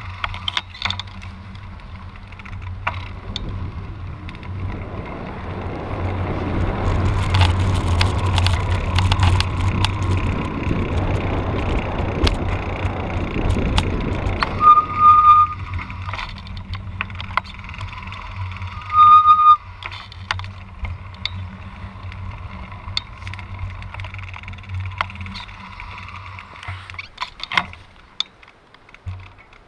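A cross bike being ridden on a road: steady tyre and road noise with the bike rattling, louder from about 6 to 14 seconds in. Two short high squeals come at about 15 and 19 seconds in.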